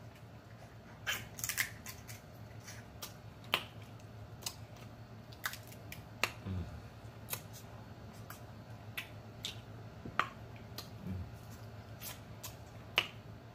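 Close-up eating sounds of snow crab legs: irregular sharp clicks and cracks of shell being broken and picked apart, with wet mouth smacking as the meat is eaten, and a couple of brief low hums.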